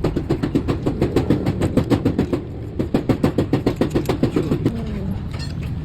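Small single-cylinder motorcycle engine running briefly with an even chugging beat of about eight firings a second. It falters about two and a half seconds in, picks up again and dies away near the end.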